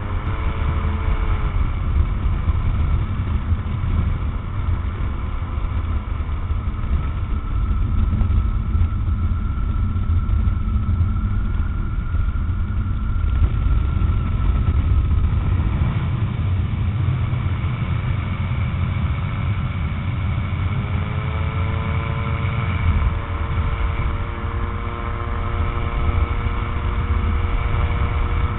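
Rotax 912 flat-four engine of a Tanarg microlight trike running in flight, under heavy wind rumble on the microphone. The engine note drops in the first couple of seconds, holds low, and climbs again about twenty seconds in.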